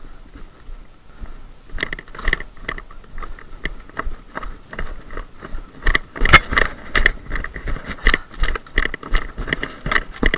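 Footsteps of a person running over dry leaf litter, picked up by a head-worn camera. They start about two seconds in and grow louder and quicker, reaching about three strides a second in the second half.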